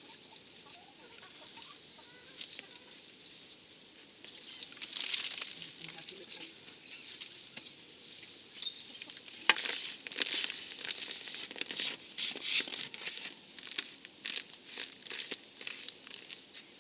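A metal tool scraping and scratching into wet cement render, in short rasping strokes that come thick and fast from about halfway through.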